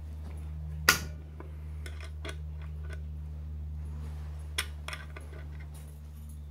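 Vice grips clinking against a brake booster's steel shell and push rod as the push rod is turned to shorten it: one sharp clank about a second in, then a few lighter clicks. A steady low hum runs underneath.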